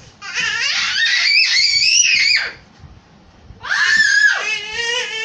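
Young children shrieking with laughter in play: two long, high-pitched squeals, the second starting about three and a half seconds in.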